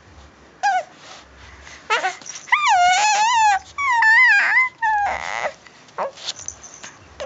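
A baby of about six and a half months making high, wavering squeals and whiny vocal sounds, then blowing a buzzing raspberry with his lips, a mouth 'fart' noise, about five seconds in.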